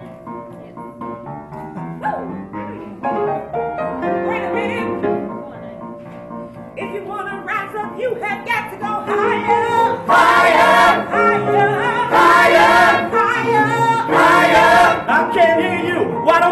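Ensemble of singers singing a choral musical-theatre number with piano accompaniment, starting softer and building to loud, full-voiced phrases over the second half.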